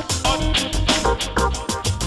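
An Android 14 Go phone ringtone on a Xiaomi Redmi Go 2, playing a full-band music track with a steady drum beat and bass.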